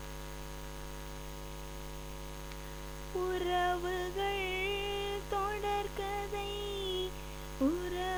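Steady electrical mains hum. About three seconds in, a woman's voice starts singing long held notes that waver slightly, without clear words.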